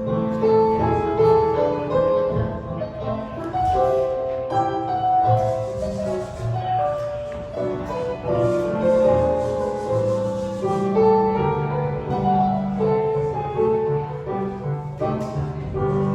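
Background music: gentle piano-led instrumental with held notes over a steady bass line.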